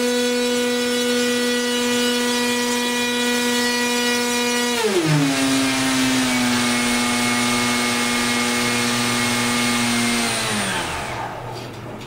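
Brushless electric motor driving a 7.5-inch propeller through a 23-inch drive shaft extension on ball bearings, running at high speed with a steady whine. About five seconds in the throttle comes back and the pitch drops to a lower steady whine with more air rush. Near the end it winds down to a stop.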